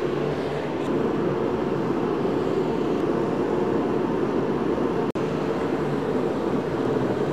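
Steady drone of a workshop heater's fan running, with one momentary break about five seconds in.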